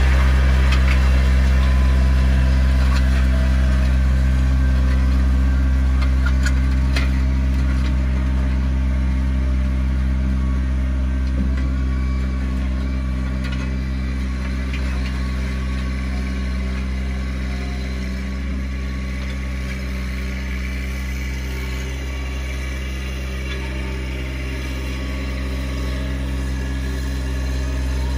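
Sany SY35U mini excavator's diesel engine idling steadily, heard from inside its cab. A Massey Ferguson GC1720 tractor's engine runs alongside as it pulls a landscape rake, the sound fading as it moves off and growing again near the end as it comes back.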